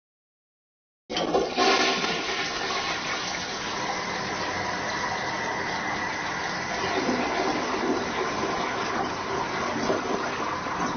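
Toilet flushing: a sudden rush of water about a second in, loudest at the start, then running steadily as the bowl drains and refills.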